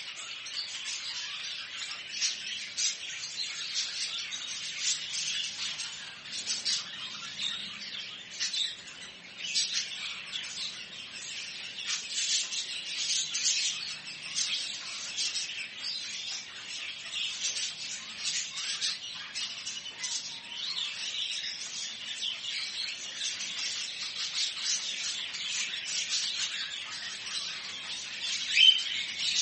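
Many caged birds in a bird shop chirping together, a dense, unbroken chatter of short high calls overlapping throughout.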